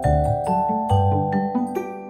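Background music: a light melody of quick struck notes with ringing tones over a bass line.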